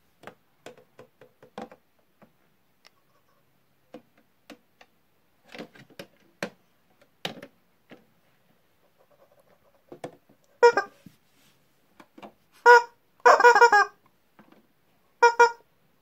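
Small clicks and taps of plastic toys and cloth being handled, then several short, loud honk-like squeaks in the second half.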